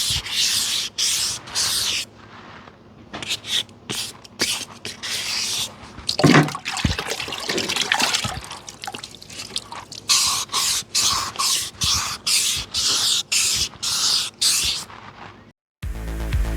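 Wet sandpaper rubbed by hand over a part in quick back-and-forth strokes, about two or three a second, in runs with short pauses, the wet rasping of water sandpaper smoothing the surface. Near the end it cuts off suddenly and electronic music with a steady beat begins.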